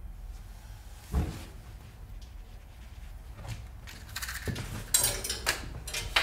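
A dull knock about a second in, then scratchy hissing as a match is struck and a gas-stove burner is lit.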